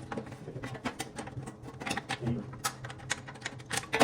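Irregular sharp metallic clicks and taps of hand tools, a hex key and an open-end wrench, working the bolts of a small fan motor's mounting base, over a steady low hum.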